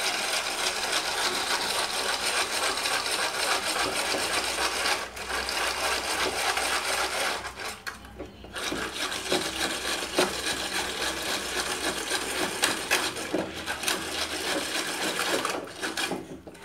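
Cooked lentils (dal), with water just added, being whisked in the pot with a dal whisk to mash them smooth: a steady scraping, swishing rub with a few brief pauses.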